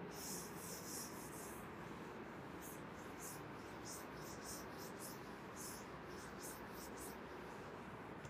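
Blackboard duster rubbing chalk off a chalkboard, faint: one longer wipe near the start, then a run of short quick strokes.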